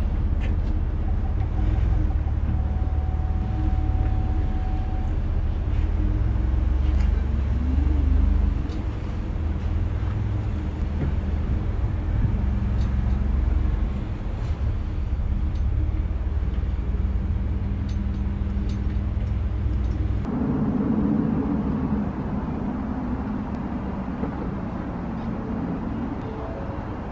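Pickup truck driving slowly with an aluminum open car trailer in tow: a steady low rumble of engine and road noise. About twenty seconds in, the low rumble drops away and a quieter, different sound takes over.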